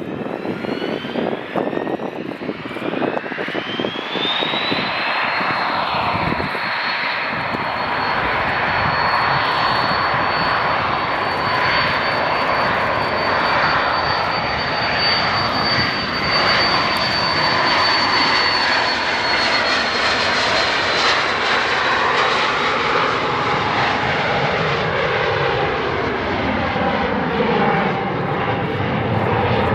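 Airliner engines spooling up: a whine rises over the first four seconds to a steady high pitch, and the engine noise holds loud and even. Near the end the lower tones fall in pitch as the aircraft passes.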